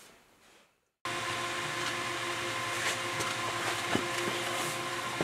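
Power hammer's electric motor running with a steady hum, starting abruptly after about a second of near silence. A single light tick is heard near the middle.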